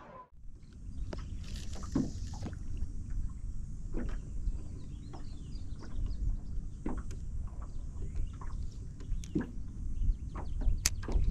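Low wind rumble with small waves lapping against a fishing boat's hull, and scattered light knocks and clicks, the loudest near the end.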